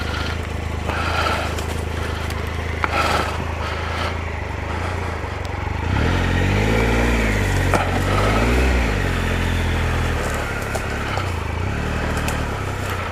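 Triumph Explorer's three-cylinder engine running steadily at low revs, then rising and falling twice in pitch from about six seconds in as the throttle is opened and closed. A few short knocks sound over it.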